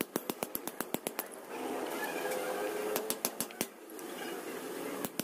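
Rapid, irregular sharp clicks and taps, several a second, over a faint hiss.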